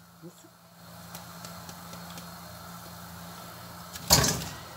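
Flour-coated cauliflower florets sizzling steadily as they deep-fry in hot oil in a frying pan. About four seconds in there is a loud metal clatter as the wire skimmer strikes metal.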